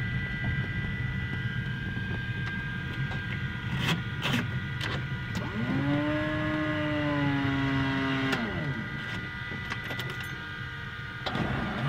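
Single-engine propeller plane's engine running steadily while taxiing, heard inside the cabin. A few sharp clicks come at about 4 seconds, and a bit after halfway a pitched whine rises, holds for about three seconds, then falls away.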